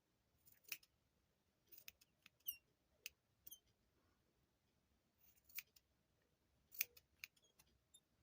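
Scissors snipping yarn: faint, sharp snips at an uneven pace, a few of them followed by a short high chirp from the blades.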